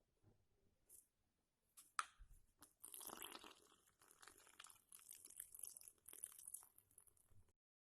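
Faint, irregular crackling and crinkling. A few separate clicks and knocks come first, then a dense run of crackle that lasts several seconds and cuts off suddenly near the end.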